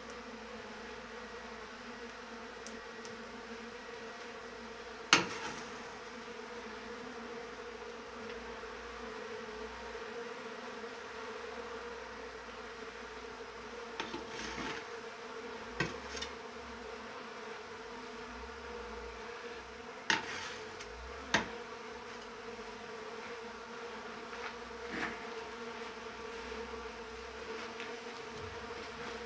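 Honeybees buzzing in a steady drone, with a few sharp knocks cutting through it: one loud knock about five seconds in and two more close together around twenty seconds.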